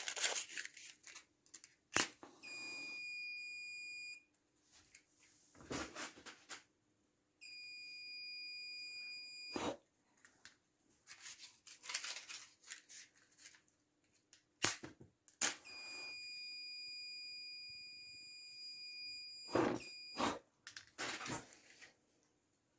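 Fire alarm buzzer sounding a steady high-pitched tone three times, the last about four seconds long and the first two shorter, with a few clicks and knocks in between.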